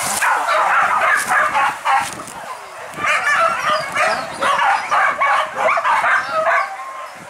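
A pack of hunting dogs barking and yelping over one another, with a short lull a little over two seconds in.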